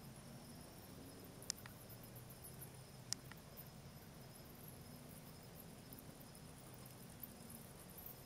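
Bats flying out of a roost box give two sharp, short squeaks about a second and a half apart, and a fainter one near the end. Under them runs a faint steady trilling of insects.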